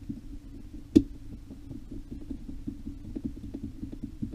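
Light ticks and clicks of small metal RC car parts being handled as a gear cover is fitted, with one sharp click about a second in, over a steady low hum.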